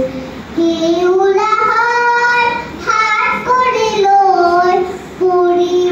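A young girl singing solo into a microphone, holding long notes that glide between pitches, with short breaks between phrases about half a second, three seconds and five seconds in.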